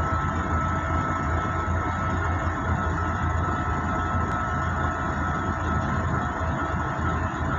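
Container freight train passing over a level crossing, a continuous steady running noise heard from inside a car through the windscreen, with a faint steady high tone running underneath.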